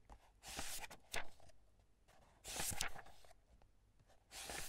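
Pages of a book being turned one after another: a papery swish ending in a crisp flick, three times, about two seconds apart.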